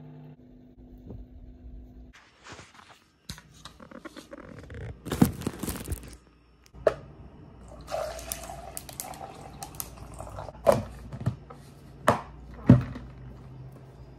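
Liquid being poured from a glass jug into a tumbler, a filling sound lasting a couple of seconds, among several sharp knocks and clatter from handling the cup and jug.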